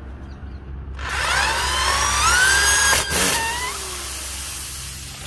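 Corded electric drill whining up in pitch as it runs into a car tyre, with a sharp crack about three seconds in and the motor winding down just after. A steady hiss follows.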